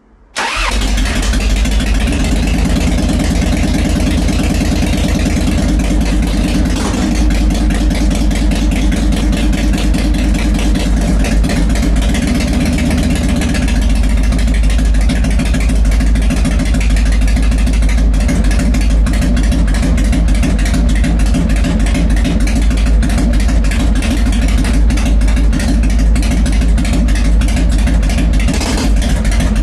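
Harley-Davidson Fat Boy's Evolution V-twin catching suddenly about half a second in and then running steadily, a little louder from about halfway through. This is its first start after winter storage.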